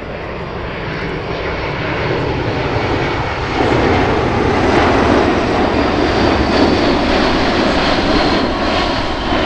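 Boeing C-17 Globemaster III's four Pratt & Whitney F117 turbofan engines as the jet flies a low, steep bank close by: a broad jet roar that grows louder, jumps up about three and a half seconds in and stays loud. A faint high whine rides above it.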